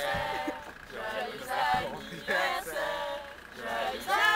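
Several voices singing together.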